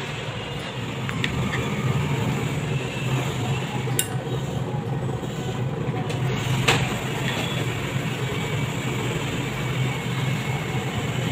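A steady low mechanical drone runs throughout, with a few sharp taps of a kitchen knife on a plastic chopping board as sausages are sliced.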